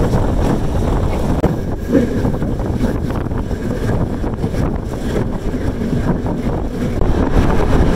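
Wind rushing and buffeting the microphone at the open doorway of a moving passenger train, over the steady rumble of the train running.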